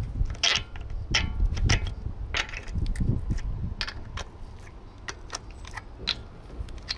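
Steel socket clinking and scraping against the wheel bolts of an alloy wheel as gloved hands fit it and turn it: a string of irregular sharp metallic clicks over a low rumble.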